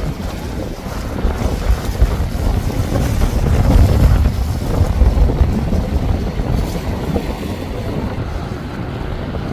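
Wind buffeting the microphone over the low rumble of a Four Winns cabin cruiser running at speed and its hull smacking through the chop, swelling to loudest about four seconds in as the boat passes closest.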